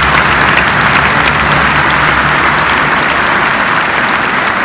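Large stadium crowd applauding, a dense, steady wash of clapping that eases slightly near the end, with a low hum underneath that fades about halfway through.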